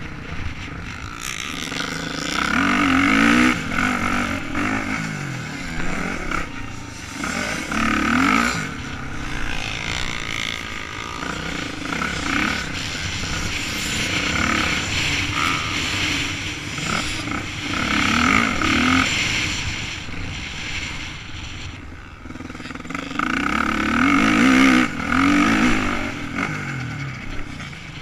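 Motocross bike's engine heard close up from on the bike, revving hard and easing off again and again as the rider works the throttle, its pitch repeatedly climbing and dropping.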